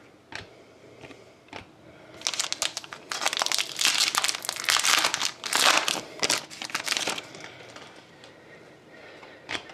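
Foil wrapper of a card pack being torn open and crinkled, a dense crackling from about two seconds in until about seven seconds in. A few light clicks of card handling come before and after.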